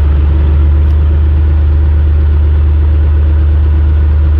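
The Kohler KDI 1903 diesel engine of a compact wheel loader running steadily with a loud low drone while the machine creeps forward to reattach its bucket.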